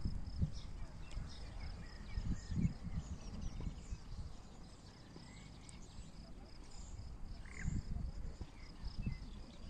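Outdoor pond-side ambience: wind gusting on the microphone, with a steady high-pitched pulsing chirp repeating a few times a second and scattered bird chirps.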